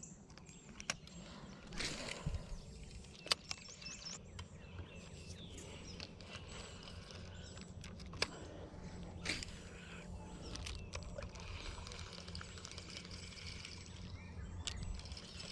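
Outdoor ambience: a steady low rumble with a few sharp clicks and knocks, and faint high chirps.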